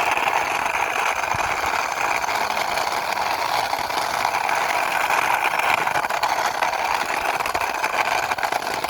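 Steady whirring, rolling noise that accompanies a toy CNG auto rickshaw being driven along by hand, unbroken and even in level.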